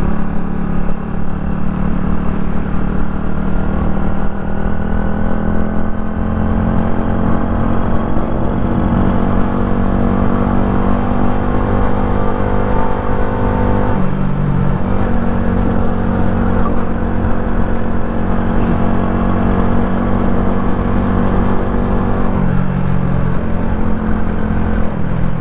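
Motorcycle engine running steadily while riding, its note climbing slowly and then shifting pitch about fourteen seconds in and again a little after twenty-two seconds.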